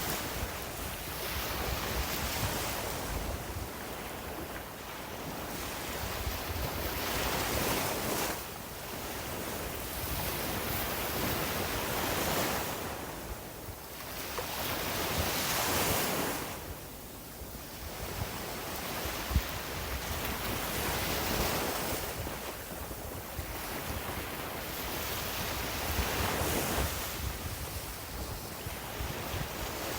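Sea waves breaking and washing up a beach, the surf swelling and falling away about every four to five seconds, with wind rumbling on the microphone. A single short tick about two-thirds of the way through.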